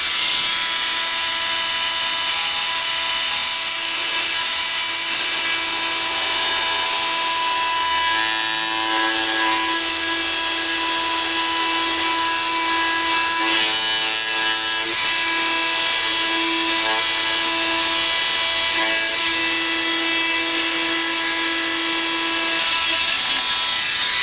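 Electric oscillating multi-tool running steadily with a buzzing whine as its blade cuts through a 2-inch PVC drain pipe.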